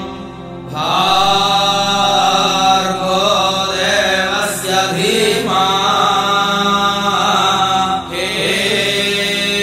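Vedic chanting in Sanskrit over a steady drone; the voice comes in about a second in, with a short break near the end.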